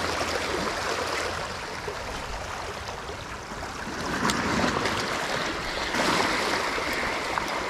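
Small waves washing against shoreline rocks: a steady watery rush that swells about four seconds in and again around six seconds.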